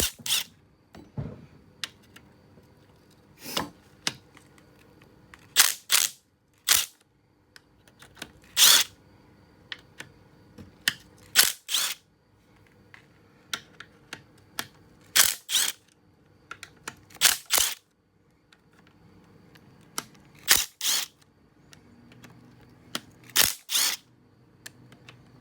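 A 1/4-inch impact zipping out 10 mm bolts from a VR6 engine's timing chain cover, in a dozen or so short bursts of hammering, often two close together, a second or two apart.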